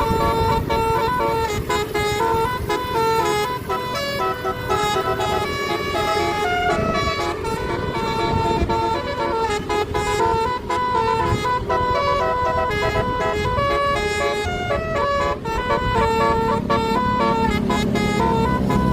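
Bus telolet horn, a multi-tone Basuri musical air horn, sounding a melody of stepped notes over and over. The rumble of the bus's engine and tyres runs underneath.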